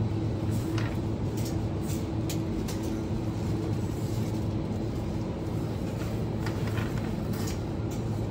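Steady low hum of supermarket refrigerated display cases, with a few faint clicks.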